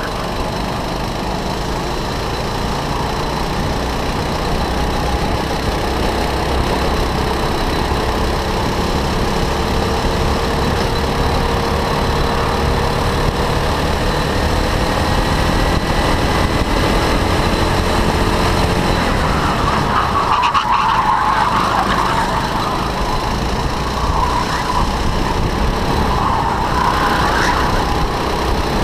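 Go-kart engine heard onboard at full throttle, its pitch rising slowly as the kart accelerates along a straight. In the last third the tyres squeal and scrub through the corners.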